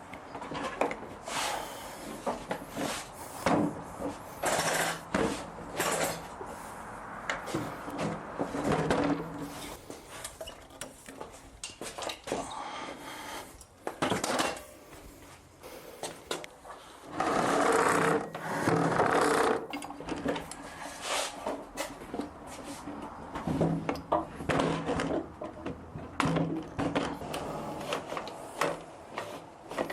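Workshop sounds: a handheld power tool's motor whirring in short runs of a second or two, the longest about two thirds of the way in, among knocks and clatter of wood and tools.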